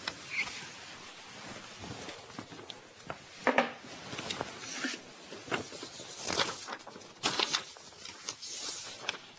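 Scratchy writing strokes, short and irregular, the loudest about three and a half seconds in and a cluster of them between six and seven and a half seconds.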